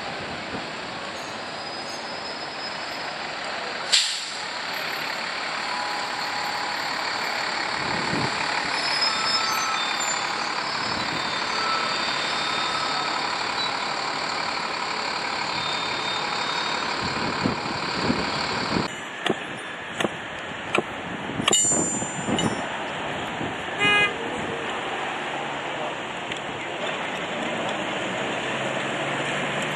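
Steady traffic and tram noise at a tram stop, with a single sharp knock about four seconds in. After a cut, a run of sharp clicks and knocks sounds as trams pass close by.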